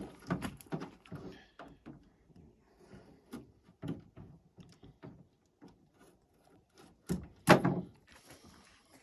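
Irregular knocks, clicks and clunks of hard objects being handled, with one much louder thud about seven and a half seconds in.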